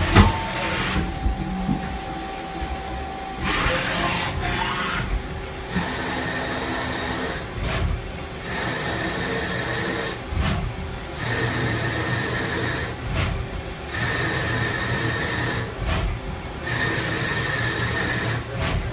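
CNC lathe cutting a thread on a spinning metal shaft in repeated passes: a steady high machining whine, broken about every two and a half seconds by a short noisy gap as the tool comes off and returns for the next pass.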